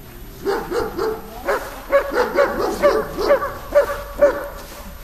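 A dog barking in a rapid run of about a dozen barks, starting about half a second in and stopping shortly before the end.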